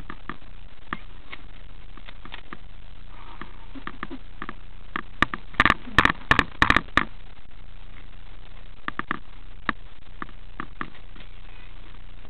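A quick run of about eight loud, sharp clacks and knocks in the middle, over steady rustling noise with scattered lighter clicks.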